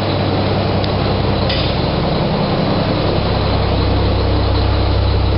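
Diesel engine of a Mack truck running steadily through newly fitted 7-inch chrome stack exhaust pipes, with a deep, even exhaust note.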